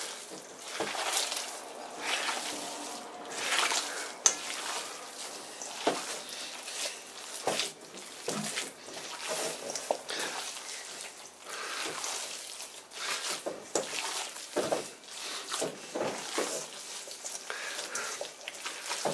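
Bare hands kneading and squeezing a wet seitan dough of wheat gluten, water and oil in a stainless-steel bowl: an irregular run of squishing, with now and then a short sharp click.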